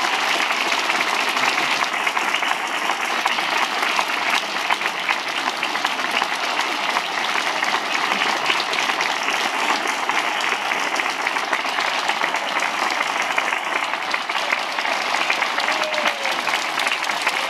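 Large theatre audience applauding steadily, a dense patter of many hands clapping.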